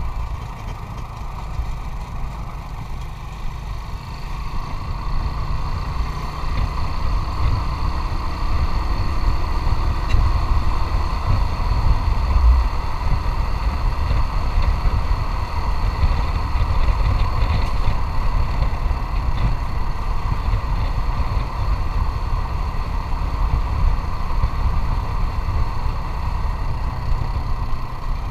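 Motorcycle engine running steadily under way, with a rough wind rumble on the camera microphone.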